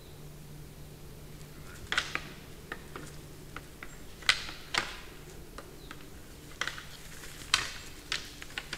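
Young red deer stags sparring, their antlers clacking and knocking together in irregular sharp clicks, the loudest about two, four and seven and a half seconds in.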